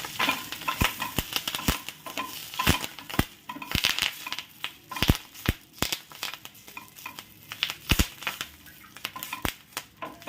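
Curry leaves frying in hot oil on a tava, crackling and popping irregularly as they crisp, with a spatula stirring them against the pan.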